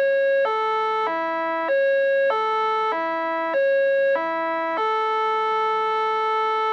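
Electronic synthesized melody of steady, unwavering tones: a falling three-note figure played three times, each note about half a second, then one long held note about five seconds in.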